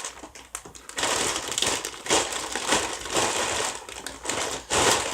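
Plastic snack wrappers crinkling as they are handled, a dense crackle that starts about a second in and stops near the end.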